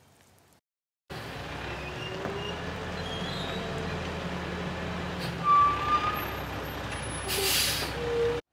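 Diesel dump truck engine running steadily while it unloads sand, starting about a second in, with a short sharp hiss of air about seven and a half seconds in.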